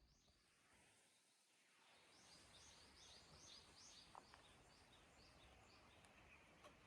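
Very quiet outdoor ambience with a small bird calling a quick series of short high notes, about three a second, starting about two seconds in and fading out a few seconds later.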